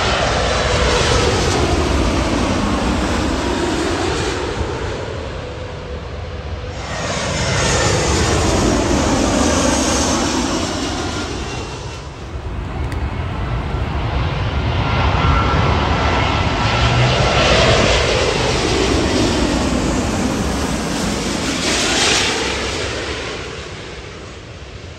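Jet airliners passing low overhead, one after another: the engine noise swells and fades three times, each pass with a sweeping whoosh that dips and rises in pitch.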